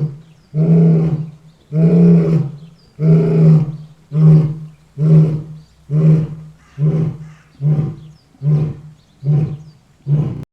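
A lion roaring: a series of deep, pitched calls, the first few long and drawn out, then shorter grunting calls about one every 0.7 seconds, tapering toward the end, the usual close of a lion's roaring bout. The sound cuts off at the end.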